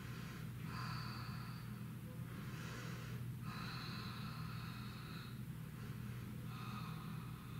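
A person's slow, audible breathing while holding a yoga pose: four long breaths in and out, each lasting a second or two. A steady low hum sits underneath.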